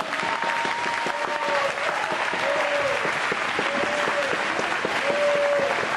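Crowd applauding in an indoor sports hall, dense continuous clapping, with a short tone that rises and falls repeating about every one and a half seconds above it.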